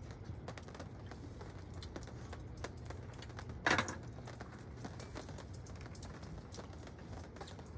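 Scattered light clicks and taps of utensils and dishes during a meal, with one louder brief clatter about three and a half seconds in.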